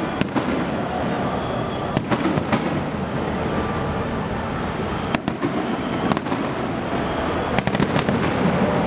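Fireworks shells bursting at a distance, about eight sharp bangs at irregular intervals over a steady background noise.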